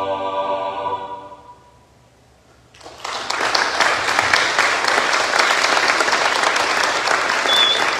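A choir's final held chord fades away, followed by a short silence; about three seconds in, audience applause breaks out and continues steadily.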